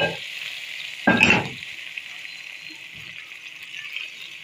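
Hot tadka oil with whole dried red chillies and cumin seeds sizzling on the surface of kadhi, the sizzle fading away. A sharp clink comes at the very start, and a short, louder stirring sound about a second in as a spatula works the tempering in.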